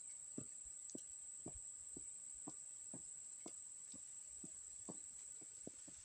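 Faint footsteps of shoes on a wet paved path, about two steps a second, over a steady high-pitched whine.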